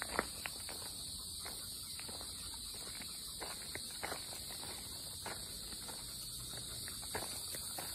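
A steady, high-pitched chorus of summer insects in woodland, over irregular soft crunches and taps.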